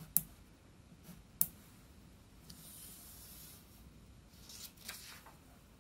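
Faint crayon writing on a small paper card on a wooden tabletop: two sharp taps in the first second and a half, a soft rubbing of paper about halfway through as the card is slid across the table, and a few light crayon strokes near the end.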